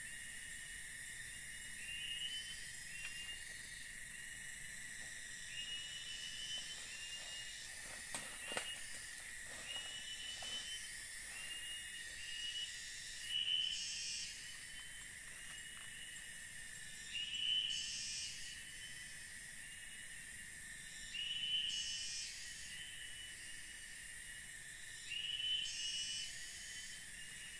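Steady insect chorus of a tropical forest, a high droning buzz, with a short rising chirp repeating about once every second or so. A few soft knocks come about eight to eleven seconds in.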